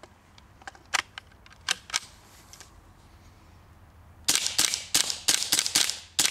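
Ruger 10/22 semi-automatic .22 LR rifle firing: a few single shots about one and two seconds in, then from about four seconds in a rapid string of sharp cracks, about three shots a second.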